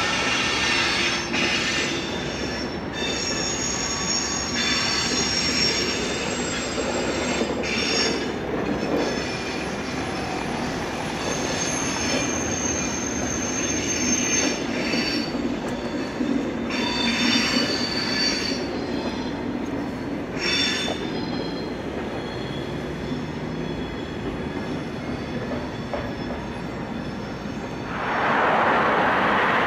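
Passenger coaches behind a red SBB shunting locomotive rolling through station tracks, their wheels squealing in repeated high-pitched bouts over a steady rumble. Near the end a louder, steady rushing noise comes in.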